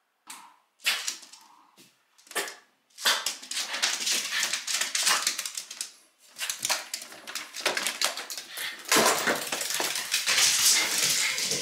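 Small Shiba Inu's claws clicking and tapping rapidly on a wooden floor as it walks about, a few separate taps at first, then a dense run of clicks. About three seconds from the end it gets louder and heavier, with the dog's feet on the stairs.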